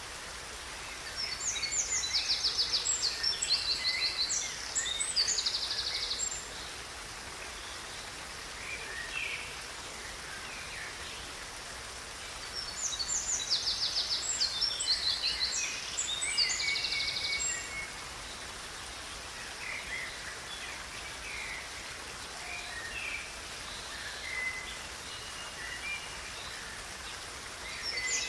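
Songbirds singing over the steady rush of a river. Two long song bouts of fast high trills and chirps come about a second in and again near the middle, with scattered single chirps between them.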